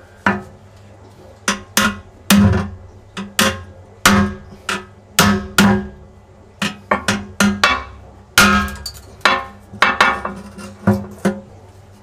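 Hammer striking a steel chisel against the aquarium's glass bottom plate, a couple of irregular blows a second, each with a short metallic ring, chipping the glass plate off.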